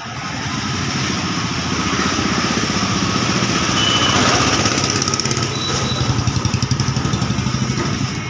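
Sewing machine running fast and stitching through cloth, a rapid, even clatter that grows louder over the first few seconds.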